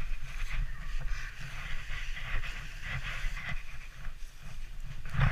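Wooden sledge runners scraping over packed snow on a fast descent, with wind rumbling on the camera microphone. A sharp knock from a bump comes right at the end.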